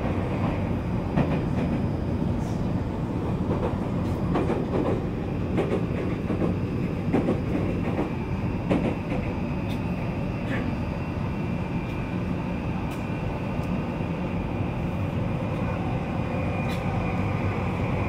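Inside a Tokyu 3020 series electric train car running at speed in a tunnel: a steady low rumble of wheels on rail with scattered sharp clicks and knocks. The car's air conditioning runs underneath.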